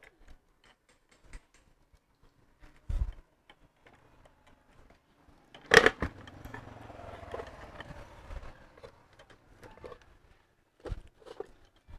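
Knocks and clatter of a metal electric-motor housing with its rewound stator being handled and turned upright on a wooden box: a few light knocks, one sharp loud knock about six seconds in, then a few seconds of rustling and small clicks, and more knocks near the end.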